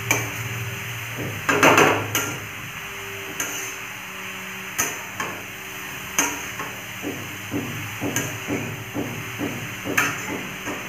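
Metal spatula scraping and knocking against the sides of a large metal kadhai while stirring grated vegetables sautéing in oil. There is a longer scrape about one and a half seconds in, then a run of clinks, irregular at first and coming two or three a second toward the end.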